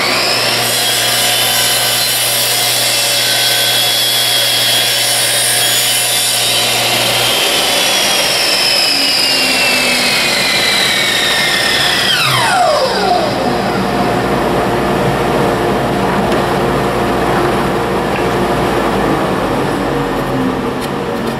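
DeWalt miter saw motor spinning up to a high whine and cutting through wooden picture-frame moulding, its pitch sagging slowly under load. At about 12 seconds it is switched off and the pitch falls steeply as the blade winds down to a stop. A steady rushing noise carries on after the blade stops, with a few light knocks near the end as the cut piece is handled.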